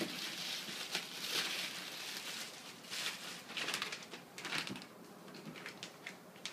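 Packaging rustling as it is handled, with a few short knocks in between.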